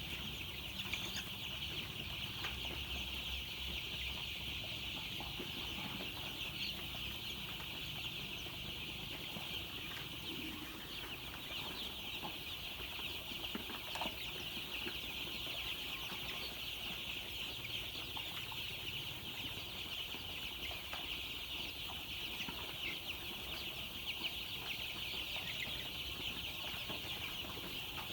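A crowd of chicks peeping continuously, many high cheeps overlapping into a steady chatter.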